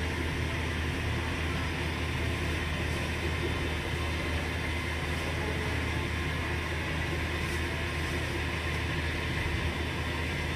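Khanom jeen rice-noodle production machinery running steadily: an even, continuous low motor hum with a constant hiss over it.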